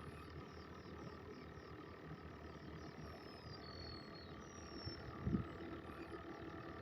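Faint outdoor ambience with animal calls in the background, including a few thin, high whistled calls near the middle. A single dull thump comes a little after five seconds in.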